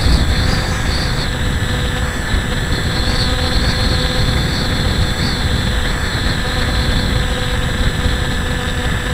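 Electric motor and propeller of a Hobbyking Breeze RC FPV plane whining steadily in flight, its high pitch wavering slightly with the throttle, heard through the onboard camera under heavy wind rush on the microphone.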